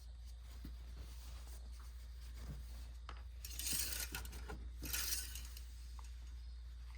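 Engine oil dipstick being drawn from its tube, wiped and pushed back in to recheck the level: scattered light clicks and taps with two short swishes, about three and a half and five seconds in, over a low steady hum.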